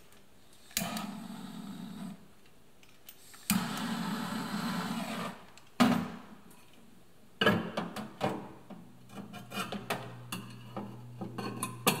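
Butane torch lighter hissing in two bursts of a second or two each as it lights the candle wick. Then a sharp click and clattering knocks as a glass bowl is handled and set down inside the microwave, with a low steady hum starting about nine seconds in.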